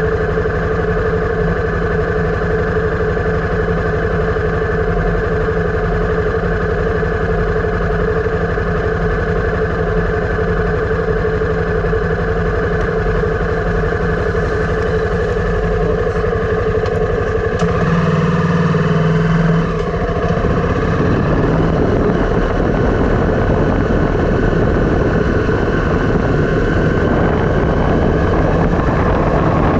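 Motorcycle engine running at a steady note; about eighteen seconds in the note changes and a rougher, rushing noise takes over.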